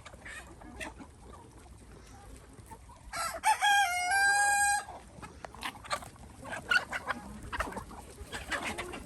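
A rooster crows once, about three seconds in: a loud call that steps in pitch and then holds for over a second. Hens cluck in short scattered calls throughout.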